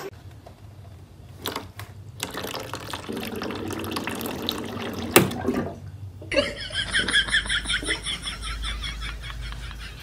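Water running from a water dispenser's tap, kept flowing by a cat pressing the push-paddle with its paws, with a few sharp clicks.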